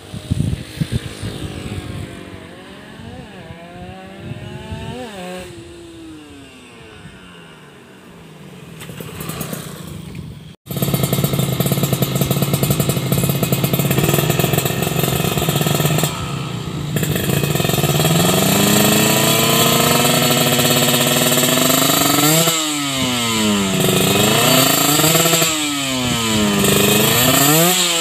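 Kawasaki Ninja RR's 150 cc two-stroke single-cylinder engine, first heard ridden at a distance, rising then falling in pitch. Then, close by, it idles loudly and is revved up and back down several times near the end, being tested after an engine clean-up, KIPS cleaning and carburettor setting.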